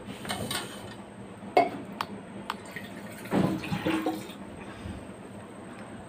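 A woman drinking water from a steel tumbler, with sharp clicks about a second and a half and two seconds in and a louder run of gulps about three and a half seconds in. She is drinking to stop a bout of hiccups.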